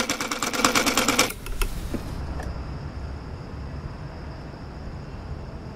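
Electric sewing machine running fast, its needle making rapid, even stitching clicks as it sews a name tape onto fabric; it stops about a second and a half in. After that only a low steady rumble remains.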